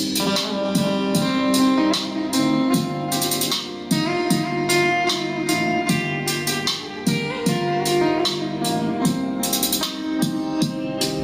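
Recorded music with guitar and drums and a steady beat, played through vintage Sony loudspeakers driven by a Sony amplifier.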